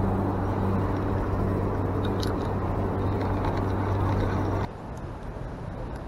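A motorboat engine running steadily with a low hum. It cuts off suddenly about two-thirds of the way through, leaving quieter outdoor noise.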